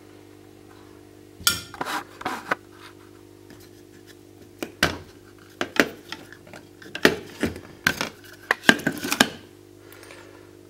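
Scattered metallic clicks and knocks, about a dozen, from a hand and tool handling the metal chassis of an opened LED TV, over a steady low hum.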